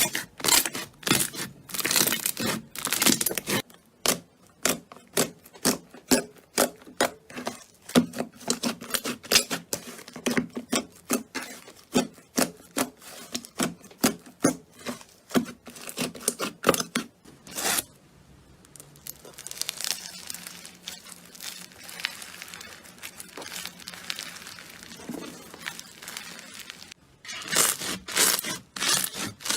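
Slime being squeezed and pressed by hand, making a quick run of crackling clicks and pops. Past the halfway point it gives way to a softer, steadier rustle, and the crackling starts again near the end.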